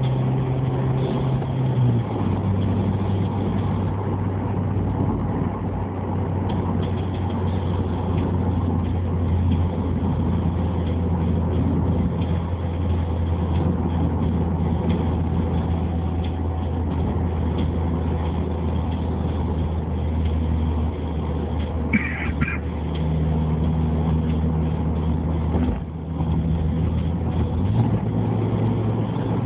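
Toyota Yaris engine through a Nitto header-back exhaust, heard inside the closed cabin: a steady exhaust drone at highway cruise. Its pitch drops slightly about two seconds in and rises again near the end.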